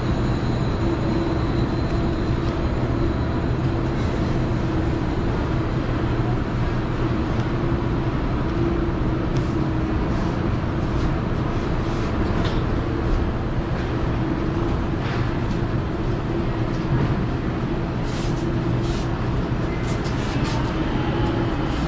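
Steady mechanical hum and rumble of an indoor market hall's refrigerated display cases and ventilation, with two held low tones. Scattered faint clicks appear from about nine seconds in.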